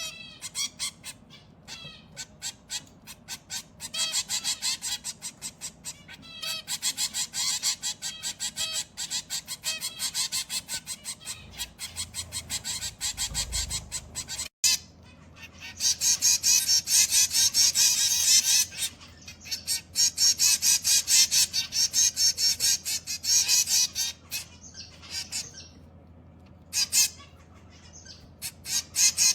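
Zebra finches calling: many short calls in quick succession, some packed into fast runs. The calls break off abruptly about halfway through and then resume.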